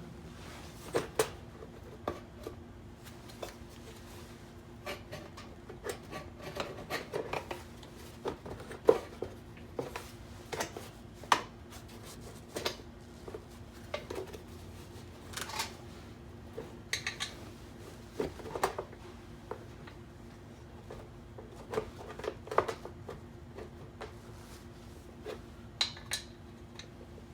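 Irregular clinks and knocks of metal tools and parts being picked up and set down, some sharp and some with a short ring, over a steady low hum.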